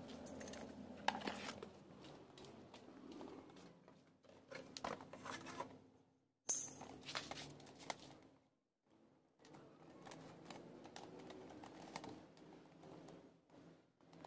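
Faint handling noise of a thin fiberglass fairing panel being picked up and carried: scattered clicks, scrapes and rustles. The sound cuts out briefly twice around the middle.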